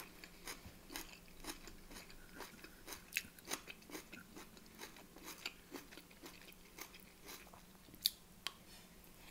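Faint, close-up chewing and mouth sounds of someone eating spoonfuls of rice and beef mince: irregular soft wet clicks, several a second, with one sharper click near the end.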